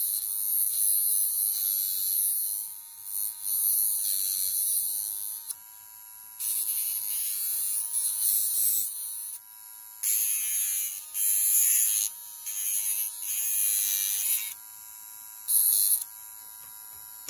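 A small electric motor whining steadily as it spins an HO scale model locomotive wheel. Over it come four long bursts of high scraping as a knife tip is held against the spinning tread to strip off clear coat.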